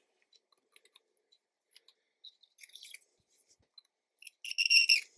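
Hand deburring tool scraping the mouth of a freshly trimmed brass rifle case to take off the sharp edges left by trimming: a short high-pitched scrape about halfway through, then a longer one near the end.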